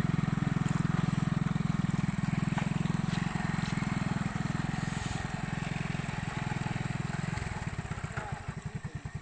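Motorcycle petrol engine running a homemade field machine at a steady, fast beat. Near the end it slows, the separate firing beats spread out and it goes quieter, as if bogging under load or throttled down.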